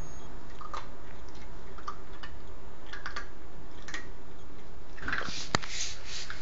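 A Basenji eating from a stainless steel bowl: faint chewing and scattered small clicks against the metal, with one sharp click about five and a half seconds in, over a steady background hum.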